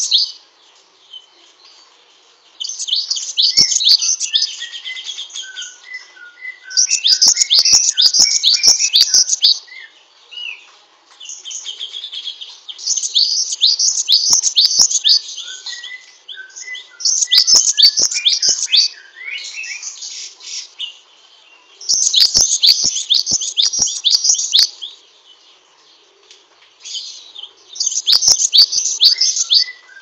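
Caged cinereous tit (glatik wingko) singing its long, rapid, high-pitched chattering song in bursts of a second or two, about six times, every four to five seconds. Softer, lower chirps come between the bursts, along with a few sharp clicks.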